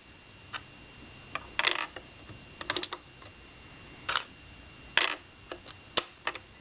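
Gumballs being dropped into a Lego gumball machine, clicking and clattering against the plastic bricks in short bursts about once a second.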